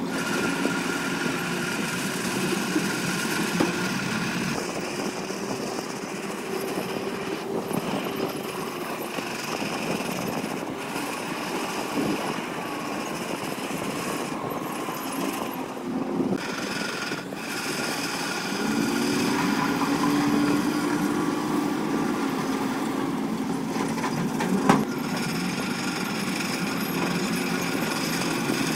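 Heavy diesel engines of dump trucks and a bulldozer running under load, their pitch rising and falling as they rev. One sharp clank near the end.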